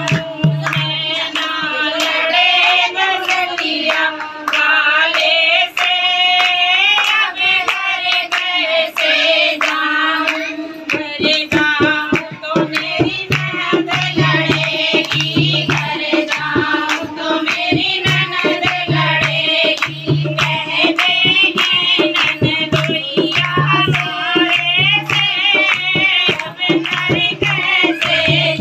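Group of women singing a devotional kirtan song, with steady rhythmic hand clapping and a dholak drum keeping the beat. The dholak's deep strokes drop out about a second in and come back about eleven seconds in.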